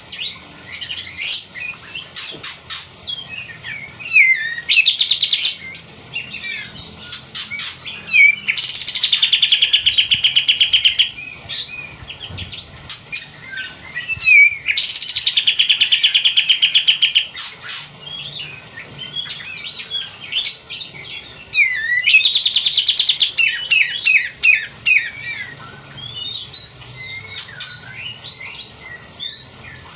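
Olive-winged bulbul (kapas tembak) singing loud and harsh. Sharp chirps and short quick phrases are broken by three long buzzy trills of about three seconds each that fall in pitch: one about eight seconds in, one near the middle and one about twenty-two seconds in.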